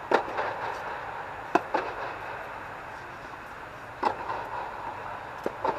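Tennis rally on an indoor hard court: sharp pops of the ball off the racquets and court, one right at the start, a close pair about a second and a half in, one about four seconds in and a pair near the end. The pops echo inside an air-supported dome over a steady hum.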